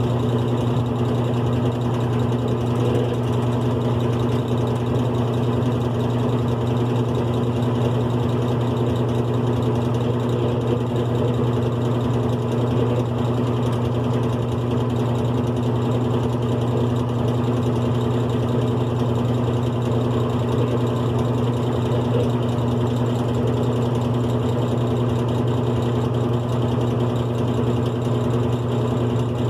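GE Profile top-loading washing machine running with a steady motor hum, driven by a single-speed motor.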